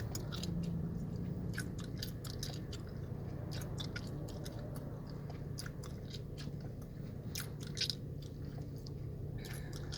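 Gum chewing close to the microphone: wet smacks and sharp clicks at an irregular pace, a few a second. Underneath is a steady low hum from the idling car's cabin.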